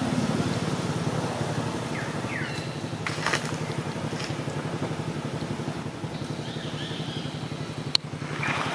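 A steady low mechanical hum, like an engine running, with a few short falling chirps and one sharp click near the end.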